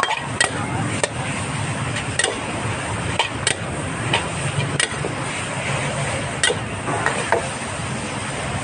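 Cooking utensils clicking and tapping irregularly against a pan, about a dozen sharp strikes over a steady background noise.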